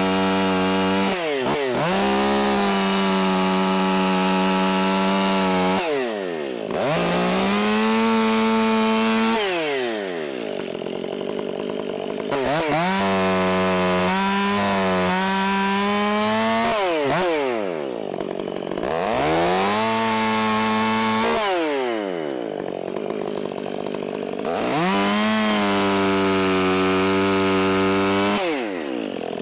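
Chainsaw cutting wood, run at full throttle in about six stretches of a few seconds each, the engine dropping back toward idle between cuts and revving up again.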